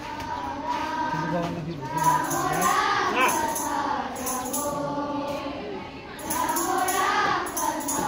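A group of schoolchildren singing a prayer together in unison, the melody rising and falling in long phrases.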